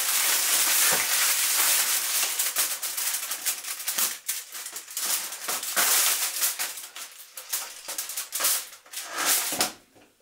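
Aluminium foil crinkling and crackling as its edges are folded and crimped shut into a sealed parcel, in a dense run of small crackles that thin out and stop just before the end.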